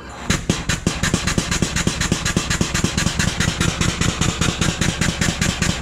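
NOS Heavy Duty air-driven nitrous refill pump switched on and cycling, a fast, even chugging of about eight strokes a second as it pumps nitrous oxide from the mother bottle into a portable bottle.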